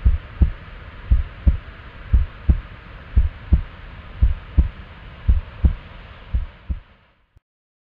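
Heartbeat sound effect: deep lub-dub double thumps, about one pair a second, over a steady hiss, stopping about seven seconds in.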